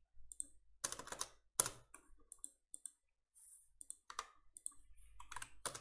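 Computer keyboard being typed on: a dozen or so short, irregular keystrokes with brief pauses between them.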